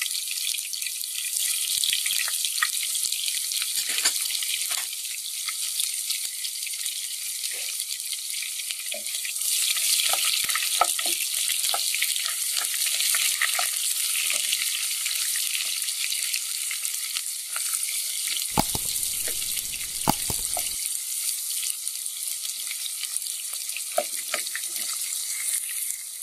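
Sliced onions sizzling in hot oil in a nonstick pot, a steady high hiss, with scattered light clicks of a plastic spatula stirring against the pot. The onions are being fried slowly to make beresta (crisp fried onions).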